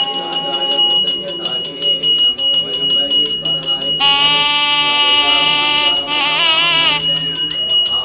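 Temple hand bell ringing continuously and rhythmically during an aarti (lamp offering), over devotional music. A high, held melody swells in about four seconds in and wavers shortly before the end.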